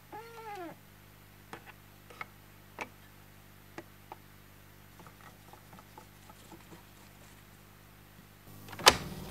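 A cat meows once, the call rising then falling, followed by light clicks and taps as the tape reels and head cover of a Sony TC-357A reel-to-reel tape recorder are handled. Near the end a loud clunk as the transport is switched on, and the machine starts running.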